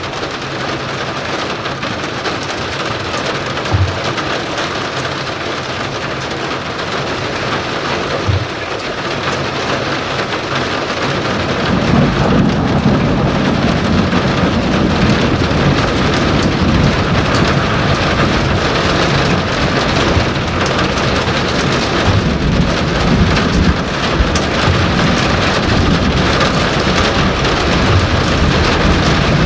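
Steady rain hiss of a thunderstorm. About twelve seconds in, a low rolling thunder rumble builds and keeps on, growing louder.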